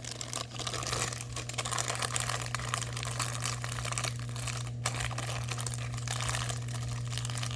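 Continuous plastic crinkling and rustling as diamond painting kit packaging is handled.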